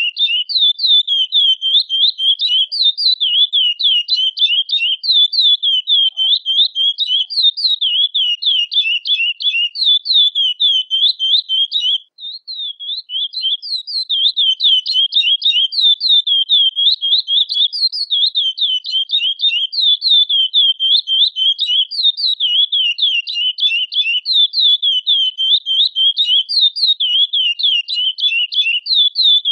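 Chestnut-bellied seed finch (curió) calling: a fast, nearly unbroken run of high chirping notes, with a short break about twelve seconds in.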